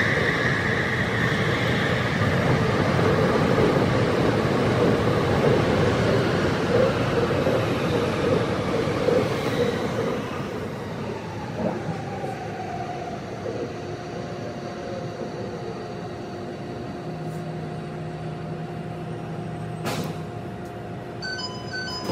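Tsukuba Express electric train heard from the front cab, running through an underground tunnel, with the audio sped up to double speed. The running rumble eases about halfway through as the train slows into a station, and a falling whine and steady humming tones come through.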